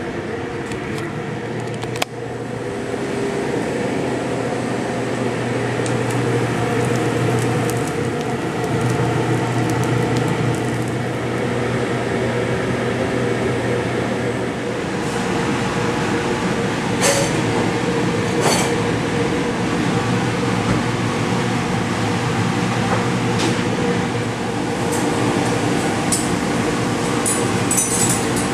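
Steady mechanical hum and rumble of commercial kitchen ventilation, with a few short clicks and clatters; its tone shifts a couple of times.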